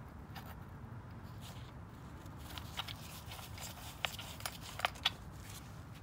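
Faint plastic clicks and taps as the air filter cover of a small Briggs & Stratton engine is pressed and fitted back into place, over a low steady background hum.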